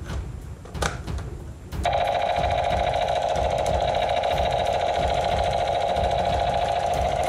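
Battery-operated toy M16-style rifle firing its electronic machine-gun sound effect, a steady rapid rattle at one constant pitch that starts about two seconds in and keeps going while the trigger is held. Before it, a few clicks of the plastic toy being handled.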